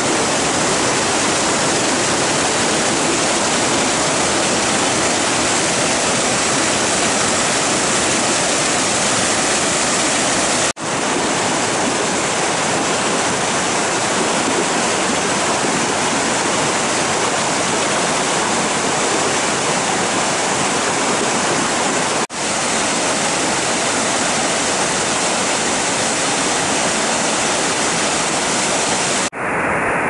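Creek cascades and a small waterfall, Granuja Falls, running high after rain: a loud, steady rush of water pouring over boulders, broken twice by momentary drop-outs.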